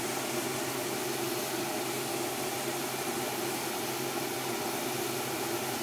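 Chopped garlic frying in oil in a small pan, a steady sizzle as it comes close to browning, over a steady low hum.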